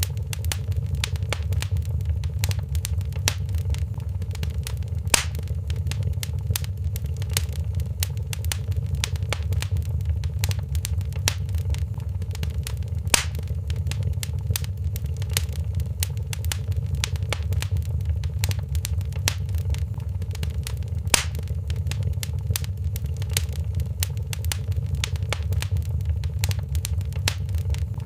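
Wood fire in a fireplace crackling with a constant patter of small crackles and a few louder pops about every eight seconds, over a steady low rumble.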